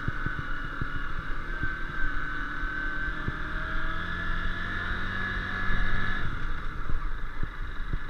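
Honda CBF150's single-cylinder four-stroke engine running under way, its pitch rising slowly, then dropping off abruptly about six seconds in. Frequent short knocks and rattles from the bike jolting over the uneven road.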